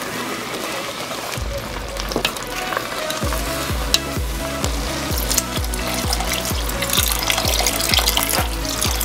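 A wooden spatula stirring thick, simmering brown-rice porridge in a pot, with wet scraping and crackling that grows busier in the second half; near the end water is poured in. Background music plays throughout, its steady bass beat coming in about three seconds in.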